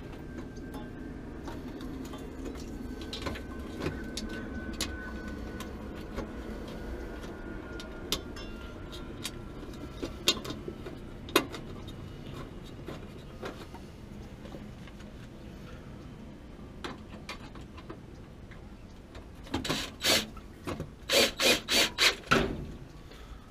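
Light metal clicks and taps as the burner assembly's gas tube fittings are handled at the bottom of a gas water heater. Near the end comes a quick run of about six loud, short scraping strokes within two seconds.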